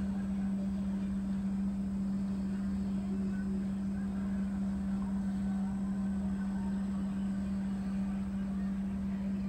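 Steady low mechanical hum: one unchanging tone, with a low rumble beneath.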